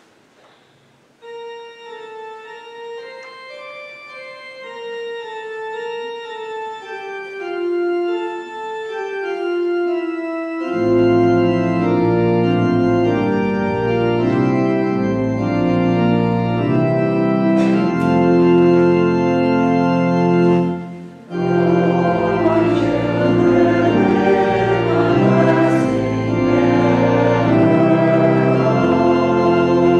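Organ playing held notes: a lone melody line enters about a second in, and full chords with a deep bass join about ten seconds in. The playing breaks off briefly about twenty-one seconds in, then carries on.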